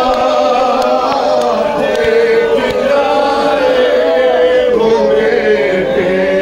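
A man singing a noha, a Shia Muharram lament, through a hand microphone in long, slowly bending held notes, with mourners around him chanting along.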